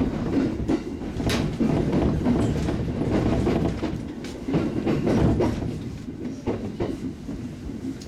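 Interior of a JR East 701-series electric train running on the rails: a steady low rumble with irregular wheel clacks over rail joints, heard inside the carriage.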